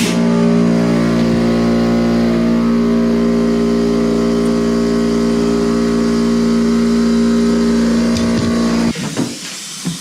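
A motor running at one steady pitch, cutting off about nine seconds in.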